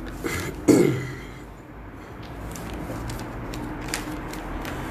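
A man clears his throat just under a second in, followed by a steady low room hum with a few faint clicks.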